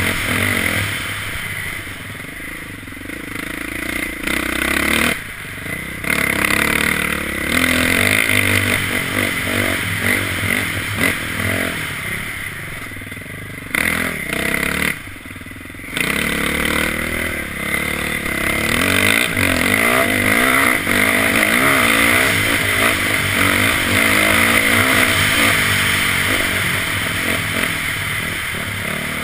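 Dirt bike engine revving up and down while being ridden over a rough trail, heard from the rider's helmet. The engine note dips briefly twice, about five and fifteen seconds in, as the throttle comes off.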